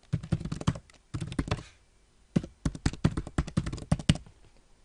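Typing on a computer keyboard: quick runs of keystrokes in three short bursts with brief pauses between them.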